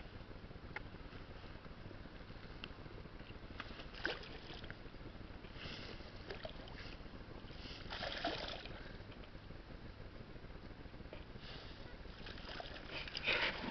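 A hooked rainbow trout splashing and thrashing at the water's surface in several short bursts, the loudest as it is drawn into a landing net near the end, over a steady low rumble.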